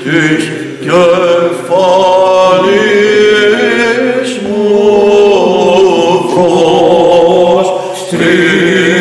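Byzantine chant: a male lead chanter sings a wavering, ornamented melody over a steady drone (the ison) held by other men's voices beneath. Both break off briefly about eight seconds in, then resume.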